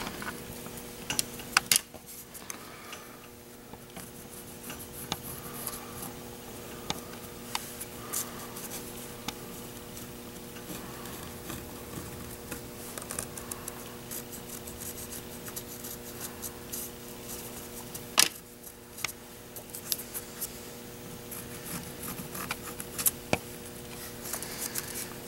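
Hands handling a paper template and a wooden CO2 dragster body on a wooden workbench: paper rustling and scattered small clicks and taps, with one sharp knock about eighteen seconds in. A steady low hum runs underneath.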